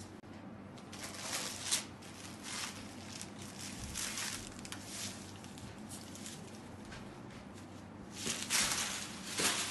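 Chiffon saree fabric rustling as it is handled and unfolded on a table: a run of soft swishes, the loudest near the end.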